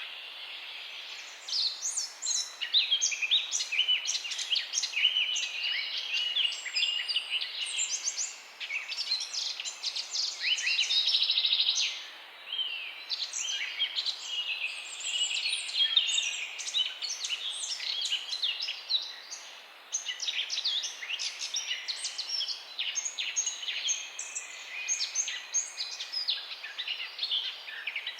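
Several songbirds chirping and singing at once in a dense morning chorus of quick overlapping chirps and trills, with one steady buzzing trill about ten seconds in.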